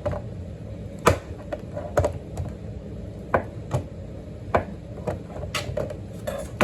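A kitchen knife cutting cheese, its blade knocking sharply and irregularly against the cutting surface with each cut.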